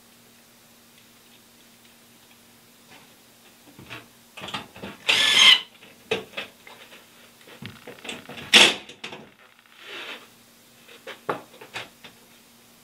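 A cordless drill drives screws into a wall cabinet in two short bursts, about five and eight and a half seconds in. Scattered knocks and clicks come from the cabinet and tool being handled against the wall.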